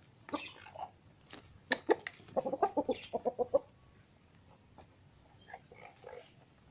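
Rooster clucking: a quick run of about ten short clucks a couple of seconds in, with a few sharp knocks before it and fainter calls near the end.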